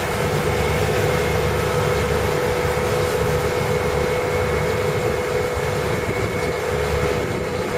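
A steady mechanical drone: a low rumble with a constant whine held on one pitch above it.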